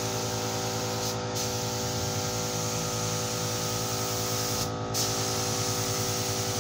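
Compressed-air paint spray gun hissing steadily while spraying a coat of blue basecoat onto a car body, over a steady machine hum with a pulsing low drone.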